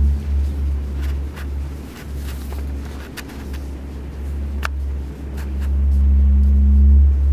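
Deep, low droning suspense underscore with a hum above it, dipping in the middle and swelling again near the end, with sparse faint clicks.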